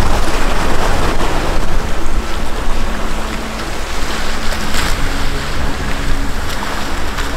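Wind buffeting the microphone over water rushing and waves slapping along a sailboat's hull under sail, a loud steady rush with a low rumble beneath.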